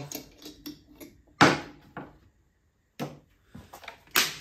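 Hands handling metal parts on a bench: the spool hub's retaining cap is unscrewed with small clicks, followed by a sharp knock about a second and a half in and a lighter one just after. A few more knocks come as a reel of MIG welding wire is picked up, and its plastic wrapping begins to crinkle near the end.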